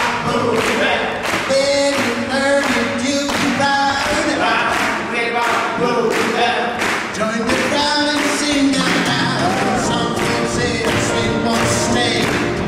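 A swing band playing an up-tempo tune with a singer over a steady, even beat.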